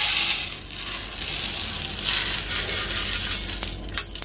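Freshly roasted coffee beans pouring out of a wire-mesh cage roaster onto a wooden tray: a rattling cascade that comes in two bursts, the second about two seconds in, then a few clicks near the end.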